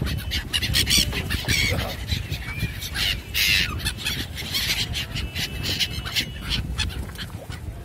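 A flock of gulls calling close by, many short calls overlapping, over a steady low rumble.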